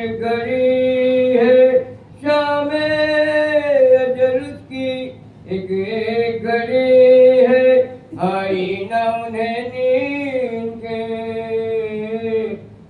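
A man's solo, unaccompanied voice chanting soz, a Muharram lament, in long held notes that bend and waver in pitch. The lines come in phrases of a few seconds each, with brief breaths between them.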